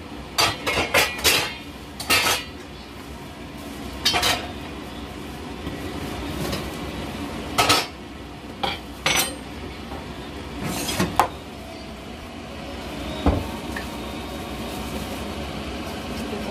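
Stainless steel mixing bowl clanking and clinking as it is handled and moved, with sharp metal knocks, several in quick succession near the start and then single ones every second or two. A steady low hum runs underneath.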